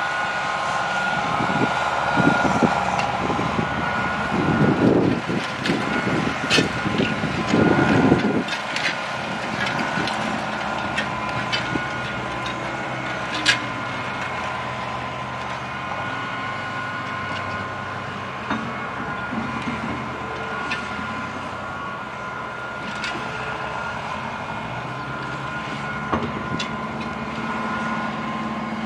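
Heavy earthmoving machinery running steadily while dirt is moved, with a louder, rougher stretch in the first eight seconds or so and a few sharp metallic knocks.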